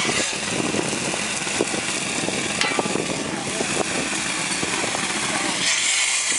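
Shotcrete spraying from a hose nozzle: a steady hiss of compressed air and concrete blasting onto rebar, over a running engine, with scattered small ticks.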